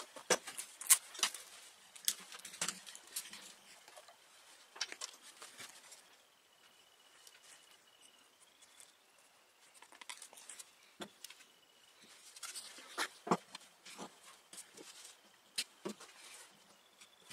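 Scattered light clicks and knocks as small pine parts and tools are handled and set down on a wooden workbench, busiest at the start and again in the last few seconds, with quieter handling in between.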